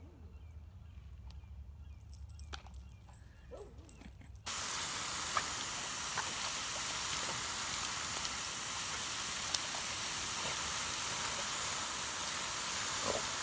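Garden hose spraying a jet of water into a muddy puddle: a steady hiss of spray that starts suddenly about four seconds in. Before it there are only faint outdoor sounds, a low hum and a few light clicks.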